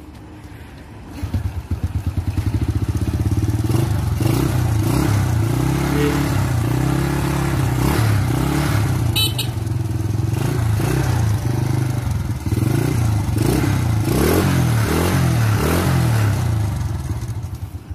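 Small four-stroke step-through motorcycle engine, just repaired with a clutch fix and top overhaul and a new timing-chain roller. It starts about a second in, then is revved up and down repeatedly, running again after being out of action.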